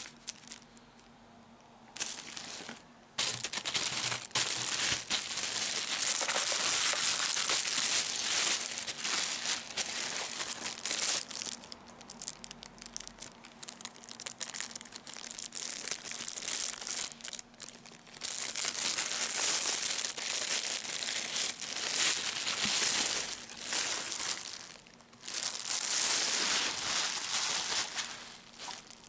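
Clear plastic wrapping crinkling as it is handled and pulled off a speaker subwoofer. It starts about two seconds in and goes on in long stretches with a few short pauses.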